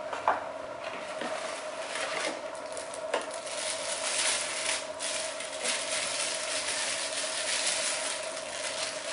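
Clear plastic bag crinkling and rustling as a camera lens is unwrapped from it, with two short clicks, one just after the start and one about three seconds in.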